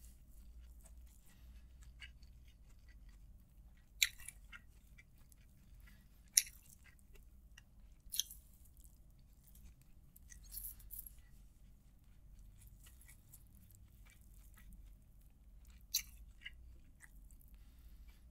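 Close-miked chewing of a mouthful of chicken biryani, eaten by hand: soft mouth and chewing noises with a few sharp clicks, about four in all, over a faint low hum.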